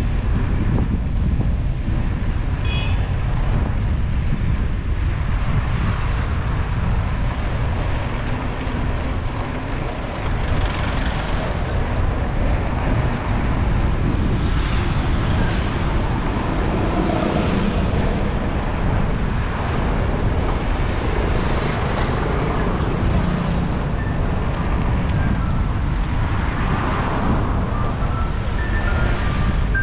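Road traffic along a town street heard from a moving bicycle: a steady low rumble with cars and trucks swelling past. A few short high tones come in near the end.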